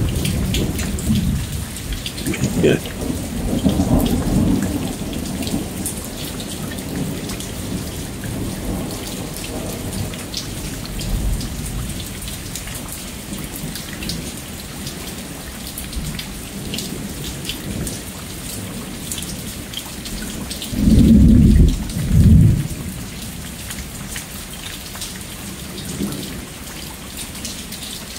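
Steady rain falling, with drops ticking, under rolling thunder. A low rumble swells and fades over the first few seconds, and two loud low thunder booms come close together about three quarters of the way through.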